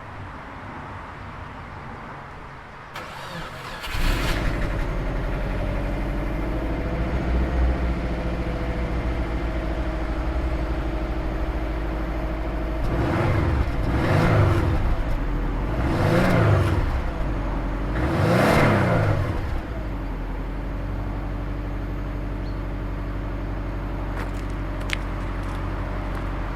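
Subaru Forester XT's 2.5-litre turbocharged flat-four on its stock exhaust, cold-started: it catches about four seconds in and settles to a steady idle. It is revved three times between about 13 and 20 seconds in, each rev rising and falling, then drops back to idle.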